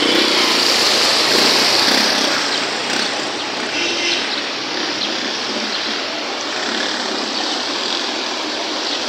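Muddy floodwater rushing along a flooded street: a steady, loud rushing hiss.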